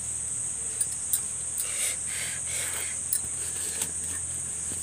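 Steady high-pitched chirring of insects, with a few light clinks of steel tiffin containers being handled.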